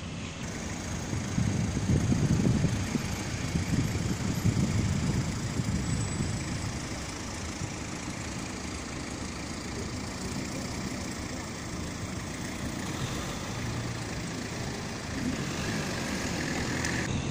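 Road traffic at a roundabout: cars driving past and queuing. The rumble swells a couple of seconds in, then settles to a steadier hum.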